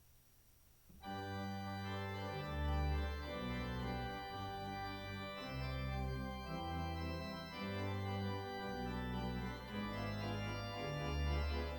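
Church organ playing a prelude of held chords over a moving bass line, starting about a second in.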